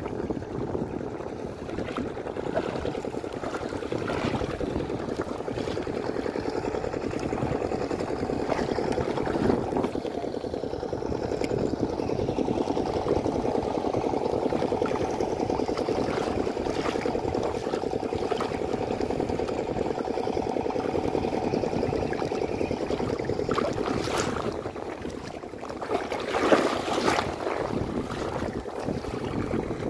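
Steady noise of wind and shallow sea water lapping at the shore, with a louder, rougher stretch and a few sharp knocks near the end.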